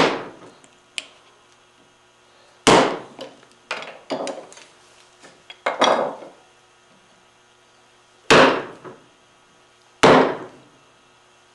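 Mallet striking a small chisel to chop out dovetail waste in curly maple: sharp, separate blows every couple of seconds, a few followed by lighter taps.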